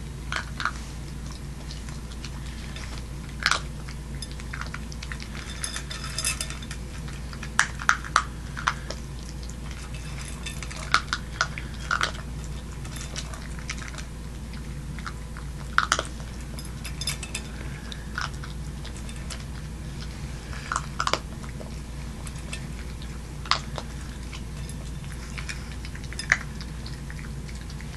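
Boston Terrier puppy eating from a stainless-steel bowl: irregular chewing and crunching with occasional sharp clinks against the metal bowl, over a steady low hum.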